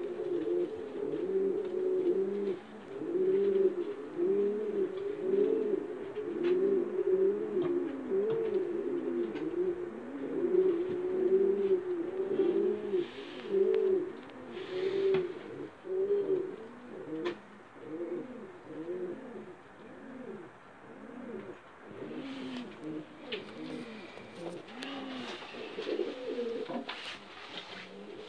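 Blue pied cock pigeon cooing over and over, a steady run of rising-and-falling coos about two a second, louder in the first half and fainter later. A few sharp knocks near the end.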